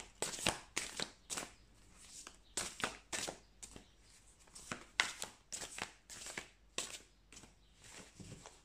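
A deck of large oracle cards shuffled by hand: soft, irregular swishes and slaps of cards sliding over one another, about two a second.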